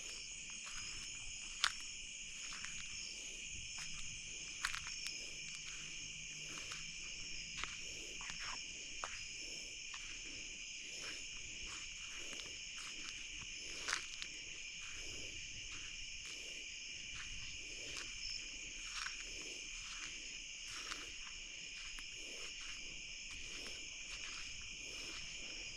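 Night-time chorus of crickets and other insects: a steady, shrill trilling that holds in two high pitch bands without a break. Faint irregular clicks and rustles sound over it, with a few sharper ticks.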